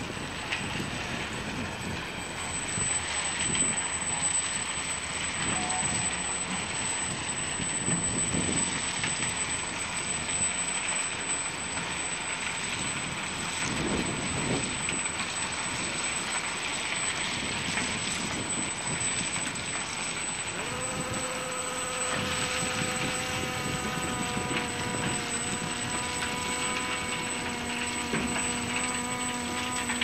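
Ballast train's plough wagon dragging its blade through freshly dropped ballast as the train rolls slowly past: a steady scraping, grinding rumble of stone and wheels. About two-thirds of the way through, a steady whine of several tones comes in alongside it.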